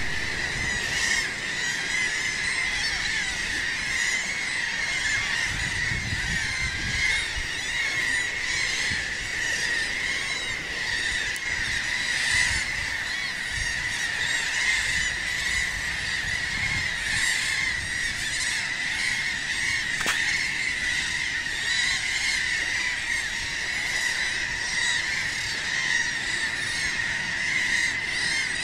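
A large flock of seabirds calling over the sea: a dense, unbroken chorus of many overlapping high cries.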